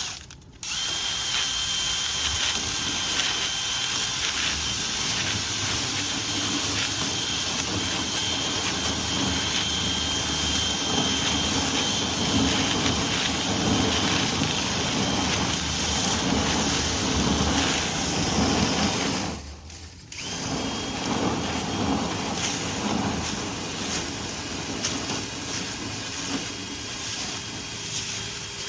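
Dryer vent cleaning tools running steadily with a faint high whine as the vent duct is cleaned out. The noise drops out briefly twice, just after the start and about two-thirds of the way through.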